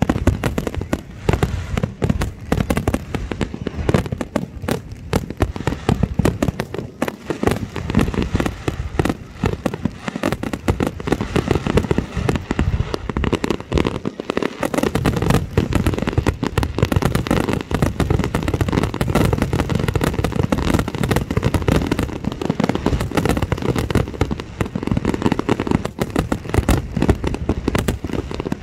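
Aerial fireworks display with shells bursting in rapid succession, a dense run of overlapping bangs that eases briefly about halfway through.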